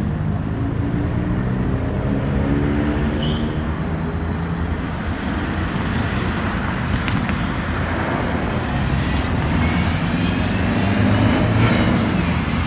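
Street traffic in a small city centre: engines of passing cars running steadily, with a few faint clicks and knocks.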